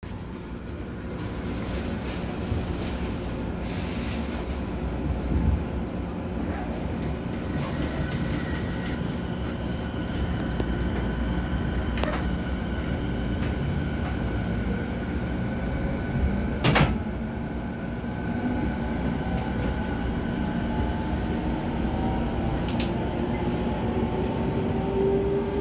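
JR East E217-series commuter train from inside a motor car: the doors slide shut near the start, a sharp click comes about 17 seconds in, and then the Mitsubishi IGBT VVVF inverter and traction motors set up a whine of several tones rising steadily in pitch as the train starts to accelerate away from the platform.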